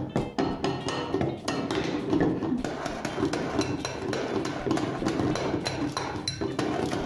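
Rapid chopstick drumming, about four to five strikes a second, on a homemade drum made from an empty tin can with a balloon stretched over it and a marble bouncing on top. It gives a pitchier sound because the can is empty. Near the end a second chopstick also beats a cellophane-covered glass bowl with rice on it.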